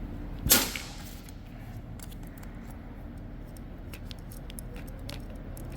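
Small metal carburetor parts being handled and unscrewed: one sharp metallic click about half a second in, then faint light clicks and taps.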